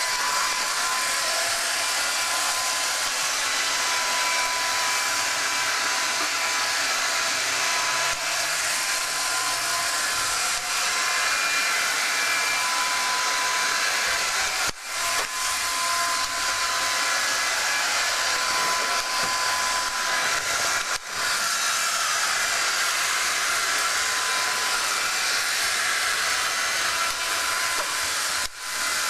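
iRobot Roomba 530 robot vacuum running: a steady motor and brush noise with a faint whine, dipping briefly three times.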